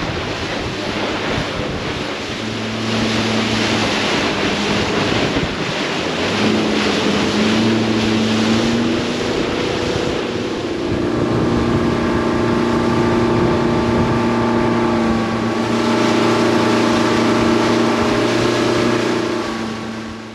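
Outboard motor driving a boat at speed over open water, with wind buffeting the microphone and water rushing past the hull. The engine note comes and goes under the wind in the first half, then holds steady, and everything fades out near the end.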